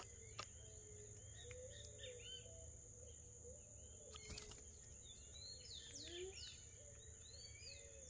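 Faint backyard birdsong: many short chirps from small birds and a lower wavering whistle, over a steady high-pitched insect drone, with a couple of faint knocks.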